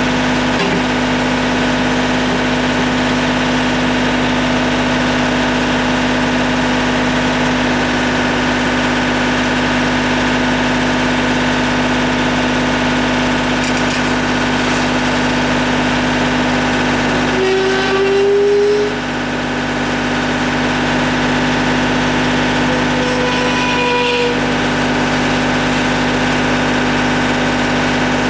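Compact tractor-loader-backhoe engine running steadily. A little past halfway a brief rising whine comes in as the machine briefly works harder.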